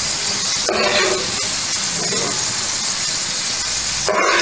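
Hot oil sizzling steadily in a frying pan as fried potato and carrot sticks are scooped out with a steel ladle, with two short louder sounds about a second in and near the end.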